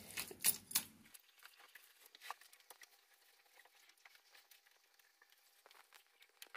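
Faint, scattered soft taps and wet dabbing of hands spreading and smoothing mud plaster on a floor, with two sharper clicks about half a second in.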